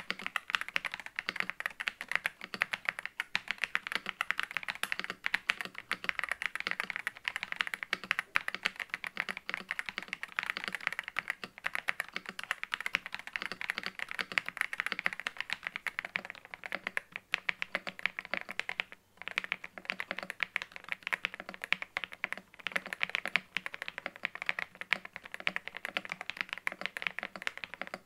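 Fast typing on an Ajazz AK820 Pro mechanical keyboard with Ajazz Moon linear switches and stock keycaps: a dense, even clatter of keystrokes. For about the first two-thirds the board is stock; after a brief gap it carries hand-lubed switches and a two-layer tape mod.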